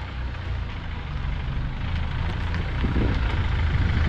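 Wind buffeting the microphone: a steady low rumble with a hiss over it, growing a little louder toward the end.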